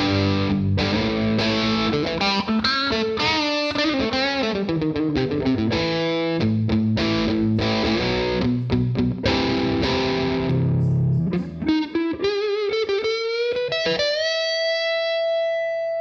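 PRS McCarty 594 electric guitar played with distortion: chugging chords and riffs for most of the time. Near the end it turns to a single-note lead with upward string bends and finishes on one long sustained note.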